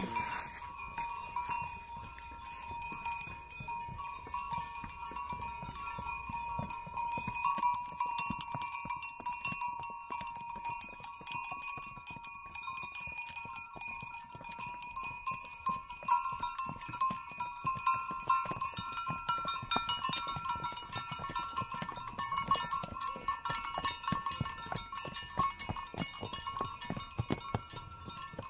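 Neck bells on a mule train tinkling steadily as the pack mules walk the stone steps, with scattered clicks of hooves on the stone.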